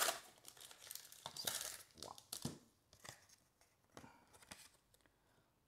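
Foil Pokémon booster pack wrapper being torn open and crinkled by hand. The crackling and tearing is busiest in the first couple of seconds, then thins to a few light crinkles and ticks.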